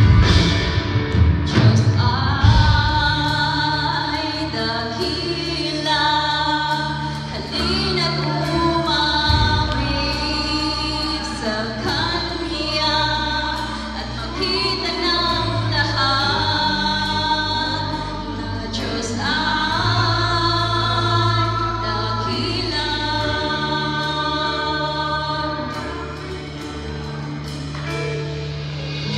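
Church choir singing a gospel worship song with a live band accompanying, long steady bass notes underneath the voices.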